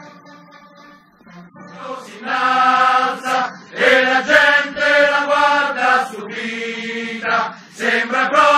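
A crowd of voices chanting loudly in unison, coming in about two seconds in over a quieter stretch of music, with held syllables and short breaks between phrases.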